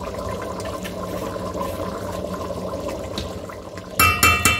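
Rice and mutton stock bubbling steadily at the boil in an aluminium pot. Near the end a metal slotted spoon scrapes and clanks against the pot several times, ringing briefly.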